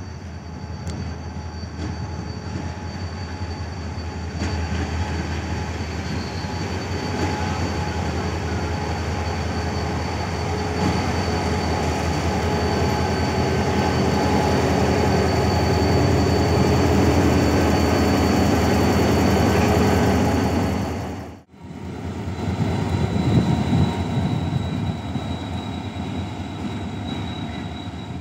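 GMU-30 diesel-electric locomotive running light: a steady engine drone with a thin high whine over it, growing louder as the locomotive comes up close alongside. The sound breaks off for an instant about 21 seconds in, then carries on somewhat quieter.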